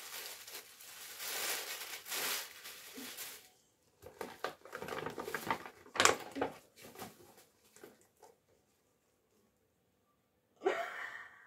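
Gift packaging rustling and crinkling as a present is unwrapped by hand: a long stretch of rustling, then shorter handling noises with one sharp knock about six seconds in, going quiet a couple of seconds before the end.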